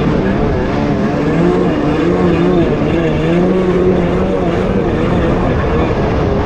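Jet ski engine running at speed, its note wavering up and down, with a steady rush of water and wind noise.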